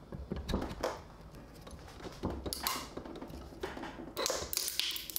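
Scattered light clicks and knocks of metal hand tools: a socket extension and ratchet wrench being fitted into a 3D-printed gear clamped in a steel bench vise, ready to load it.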